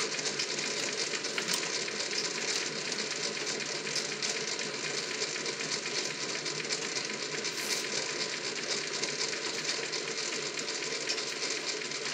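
A steady hiss, with a cloth rubbing over the metal mold disk and molds of a Linotype machine as they are polished.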